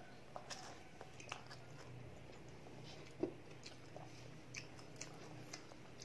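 Quiet eating sounds: spaghetti slurped and chewed, with scattered light clicks of metal forks against ceramic plates and one louder knock about three seconds in. A faint steady low hum sits underneath.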